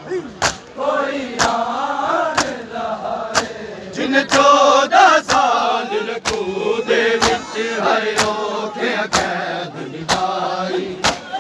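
A crowd of men chanting a noha (mourning lament) together. Sharp slaps come about once a second from the mourners beating their chests in unison (matam).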